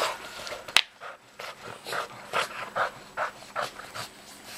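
Boston terrier panting in quick, even breaths, about two or three a second, with a single sharp click a little under a second in.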